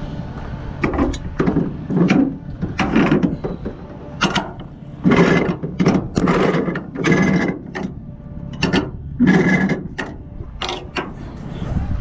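Nylon cargo strap being pulled and worked at a flatbed trailer's side winch and rub rail: a series of rasping, ratchet-like strokes about once a second.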